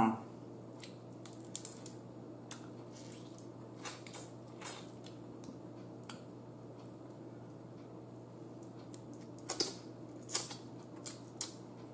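Boiled blue crab shell being picked apart by hand: scattered small cracks and clicks, with a few louder ones near the end.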